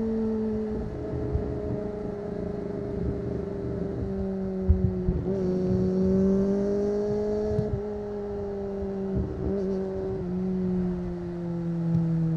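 Kawasaki ZX-25R's 249 cc inline-four, breathing through an Akrapovic exhaust, heard onboard while riding at fairly steady high revs. The engine note sags slowly, rises a little about halfway through, then eases off again.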